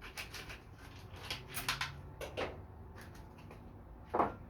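Hands handling parts of a thread repair kit: a run of small clicks and rattles, with one louder knock near the end.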